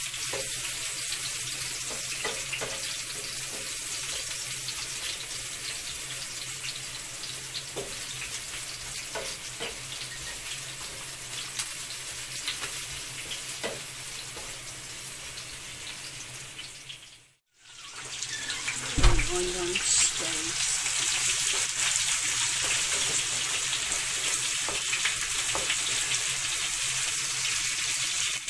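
Chopped garlic frying in hot oil in a pan, a steady sizzle. About two-thirds of the way through the sound cuts out for a moment and comes back with a knock. After that the sizzle runs louder, with sliced red onions in the pan.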